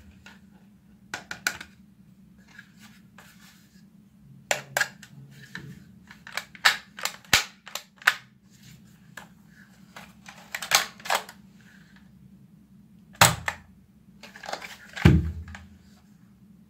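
Plastic clicks and clacks of a toy foam-dart blaster being handled and worked, in irregular clusters, with two louder knocks that carry a low thump near the end.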